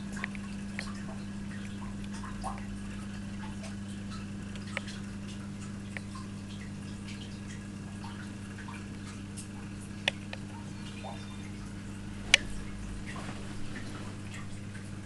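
Steady low hum of an aquarium filter pump, with small water drips and ticks scattered over it and two sharper clicks, about ten and twelve seconds in.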